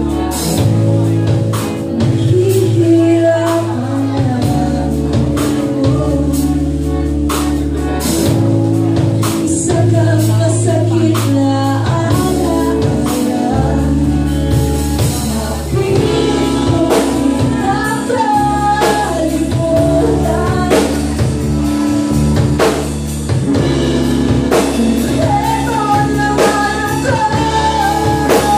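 Live rock band playing: a woman singing lead into a microphone over electric guitar, bass guitar and a drum kit.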